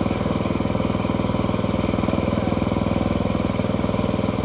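Engine running steadily at a constant speed, with an even, fast firing pulse.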